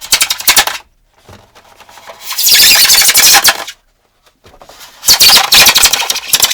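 Very loud, harsh screeching in three bursts, each with a fast rasping flutter, made with a household object as a foley stand-in for a rat's squeal.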